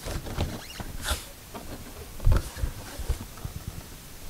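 Plastic door trim panel being pressed and tapped down onto the car door by hand: light scraping and rustling of plastic with scattered small knocks, the loudest a low knock a little past two seconds in.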